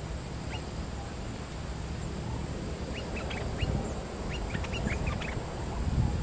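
Bulbuls giving short, rising chirps: a single one about half a second in, then quick runs of them from about three seconds, thickest around five seconds, over a steady low rumble.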